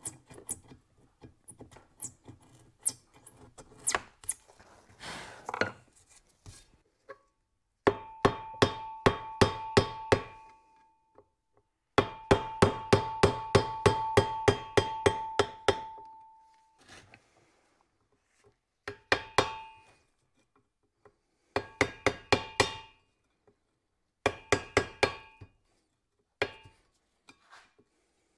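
Metal pick and screwdriver scraping and clicking against the metal dust cover of a driveshaft centre-bearing joint. From about eight seconds in come bursts of quick hammer taps on the screwdriver, about four a second, driving the cover off, and each tap rings out from the steel driveshaft.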